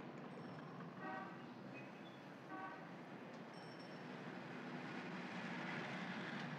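Street traffic rumbling steadily, with two short car-horn toots about a second in and again a second and a half later.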